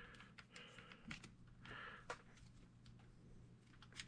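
Near silence: faint, scattered small clicks of small parts being handled while a part is turned to thread it on, over a faint steady low hum.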